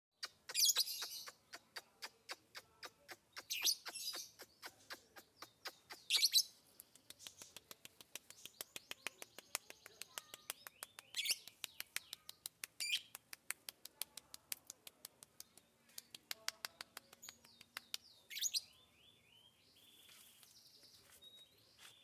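Lovebird singing a long fast run of sharp chirps, several a second, broken every few seconds by a louder shrill burst, then softer twittering near the end.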